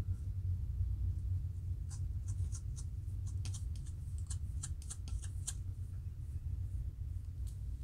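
A fine-tooth plastic comb scraping along a dry, flaky scalp between locs, lifting dandruff: a quick run of about a dozen short, dry scratches in the middle. A steady low rumble sits underneath throughout.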